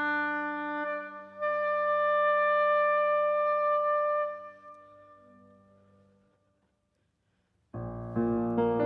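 Oboe holding long, sustained notes over soft piano on an August Förster grand. The oboe's last note ends about four seconds in and the piano dies away to a brief silence. Near the end the piano comes in loudly with a chord while the oboe rests.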